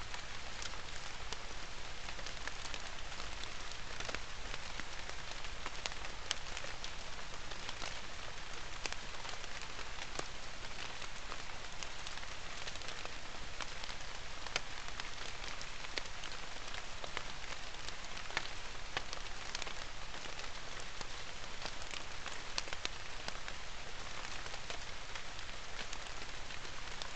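Steady rain falling on forest foliage: an even hiss made of many small random ticks, with no let-up.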